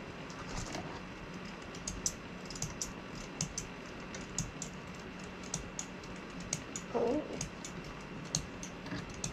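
Irregular light clicks and ticks of small sewing tools and thread-cutting snips being handled, over a faint steady hum.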